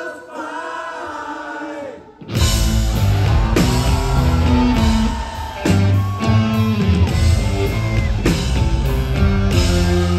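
Live rock band playing loudly. A thinner passage drops away almost to nothing about two seconds in, then the full band, with drums and electric guitar, crashes back in.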